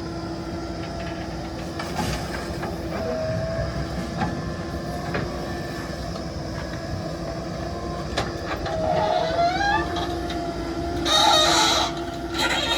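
JCB 3DX backhoe loader's diesel engine running steadily, with a brief rising pitched cry about nine seconds in and a short hissing burst near the end.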